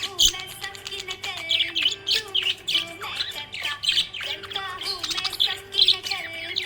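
Budgerigar chirping and chattering in a quick, continuous run of short high calls, several a second.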